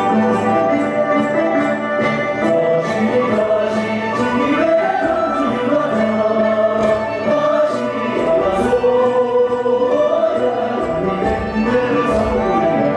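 Tibetan Amdo dance song: voices singing a melody over held instrument tones, with a steady beat of light ticks about three a second.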